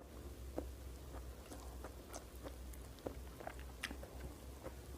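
A person chewing food, with faint scattered small clicks and mouth sounds over a low steady hum.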